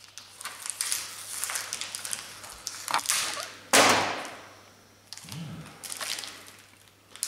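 Plastic wrapper of a beef snack stick crinkling as it is worked open by hand, with one loud sudden tear a little under four seconds in, then more crinkling.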